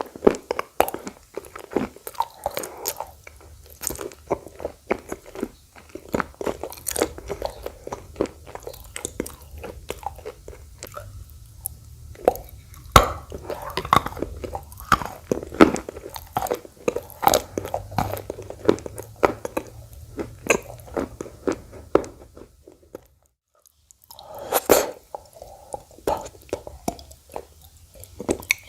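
A person biting and chewing edible clay, with dense sharp crunches throughout. The crunching stops for about a second around 23 seconds in, then starts again with a loud bite.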